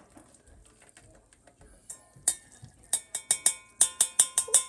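A metal mesh strainer rapped repeatedly against the rim of a saucepan to knock the last cooked macaroni into the pot. It starts about two seconds in as a quick run of sharp metallic clanks, three or four a second, each ringing briefly.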